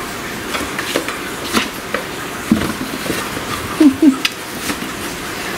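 Kittens pushing and scrambling into a cardboard tea carton on a hardwood floor: scattered light taps, scrapes and cardboard rustles over a steady background hiss. Around the middle and again about four seconds in come a few short, low voice-like sounds.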